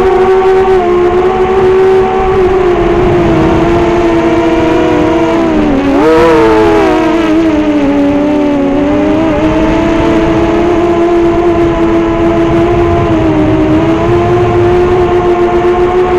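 Brushless motors of a 5-inch FPV racing quadcopter spinning Dalprop 5045 propellers, heard from the camera on the drone: a steady whine whose pitch climbs sharply about six seconds in, then dips and settles back as the throttle changes. Wind rumbles on the microphone underneath.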